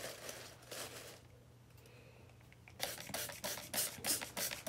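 Dry leaf litter rustling under a hand in a plastic tub, then, about three seconds in, a handheld spray bottle misting the leaves in quick repeated squirts, several a second.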